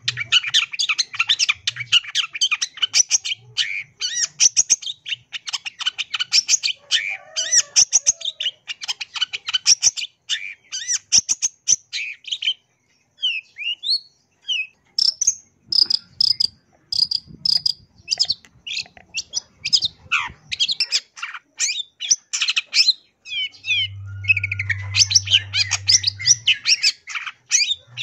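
Long-tailed shrike (cendet) singing a rapid, scratchy chatter of high notes packed with mimicked calls of other birds, broken by a short pause about halfway, followed by a few clear whistled notes before the chatter resumes.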